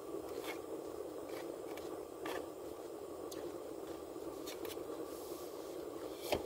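A fork scrapes and clicks in a takeout food container during eating, a few scattered taps with a sharper click near the end, over a steady low hum.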